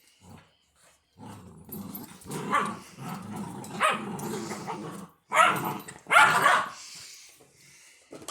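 Labrador puppies growling for a few seconds, then two loud barks in quick succession.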